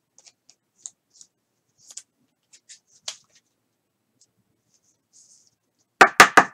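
Faint, scattered clicks and light rustles of trading cards and pack wrapping being handled, then a short, loud burst of three quick pulses about six seconds in.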